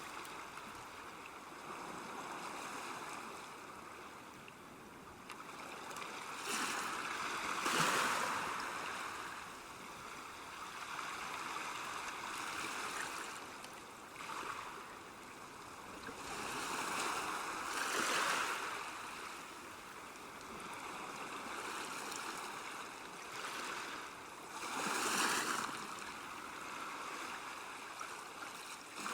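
River water running and lapping along a bank: a steady rushing, with three louder swells.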